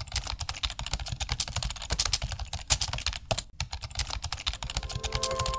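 Fast computer-keyboard typing, a dense run of clicks many per second, used as a sound effect for text appearing. Soft melodic notes come in near the end.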